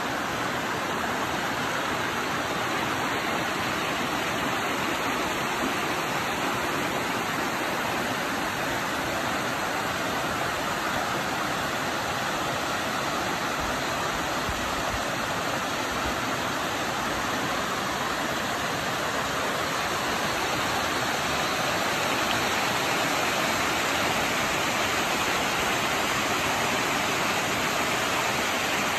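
Creek water rushing steadily over rock rapids and small cascading falls, an even, unbroken rush that grows a little louder about two-thirds of the way in.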